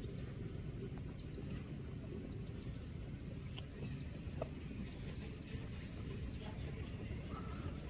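An insect trilling high and fast in four bursts of about a second each, over a steady low rumble.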